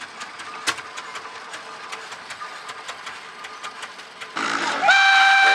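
Show-ground background with scattered sharp clicks, then a loud whistle starting about four seconds in and holding one steady high note.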